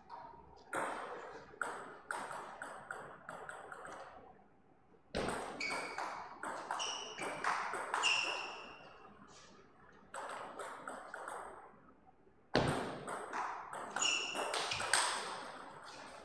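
Table tennis ball clicking off the bats and the table in a rally, with runs of lighter bounces between points and a few sharper, louder hits.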